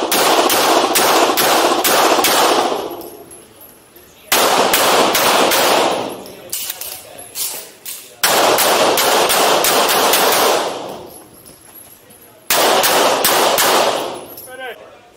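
Handgun fired in four rapid strings of shots, about three to four a second, echoing around an indoor range. Each string is separated by a pause of one to two seconds while the shooter moves between positions on a USPSA pistol stage.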